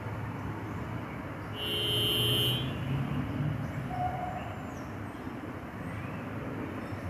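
Steady low rumble of a distant Metro-North commuter train, with a short horn blast of about a second, a little over a second and a half in.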